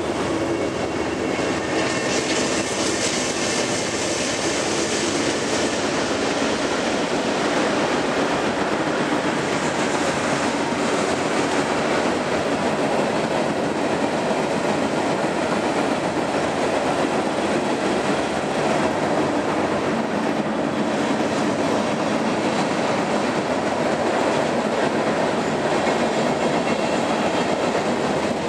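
A freight train's cars (covered hoppers, boxcars and tank cars) rolling across a steel truss railroad bridge, making a steady noise of steel wheels on the rails.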